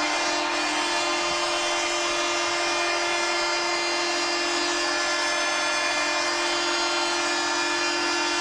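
Arena goal horn sounding in one long, steady, buzzing blast over a cheering crowd, marking a goal.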